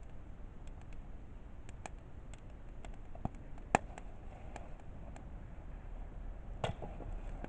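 Wood campfire crackling, with irregular sharp pops and snaps from the burning firewood. The loudest pop comes about halfway through, and a short cluster of pops comes near the end.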